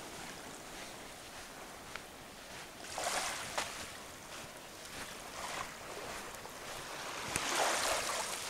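Small waves lapping on a sandy, pebbly beach in calm sea. The wash swells about three seconds in and again near the end, with a few faint clicks in between.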